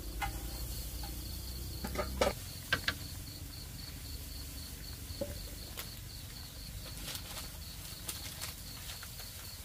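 Chopsticks clicking and tapping against a wok of vegetables over a crackling wood fire, a handful of sharp clicks scattered through, with crickets chirping steadily behind.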